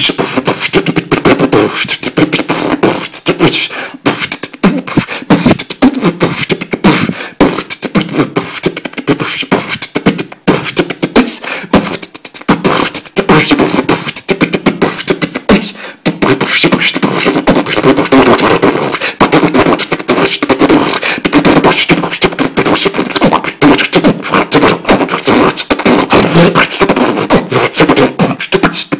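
A man beatboxing: a fast, dense run of mouth-made drum sounds, recorded loud and close on a smartphone microphone, with brief breaks about ten, twelve and sixteen seconds in.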